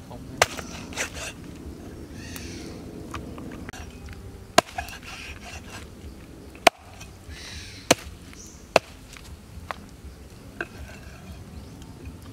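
A cleaver chops a raw eel into chunks on a wooden chopping board: about half a dozen sharp, irregularly spaced chops, with softer scraping of the blade on the board between them.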